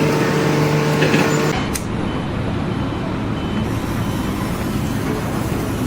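Heavy engine running steadily at a work site, a low hum with a few steady tones that drop away after about a second and a half, leaving an even mechanical rush.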